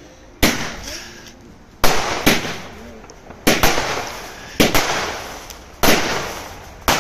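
Large fireworks bursting in quick succession: about seven sharp bangs roughly a second apart, each fading off in a hissing tail.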